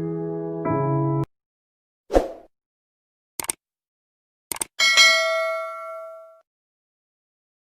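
Electric-piano music stops just over a second in. Then come a soft pop, a couple of short clicks, and a bright bell-like ding that rings out and fades over about a second and a half.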